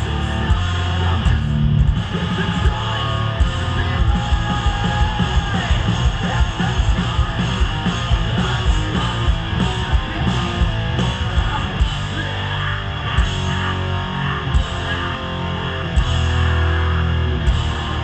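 Metalcore band playing live through a festival PA, heard from within the crowd: distorted electric guitars over bass and fast, dense drumming, loud and without a break.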